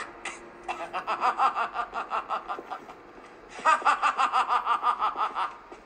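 A high-pitched, rapid laugh in two runs: the first from about a second in to about three seconds, the second from about three and a half to five and a half seconds.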